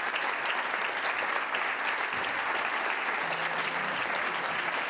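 Audience applauding: a large seated crowd clapping steadily.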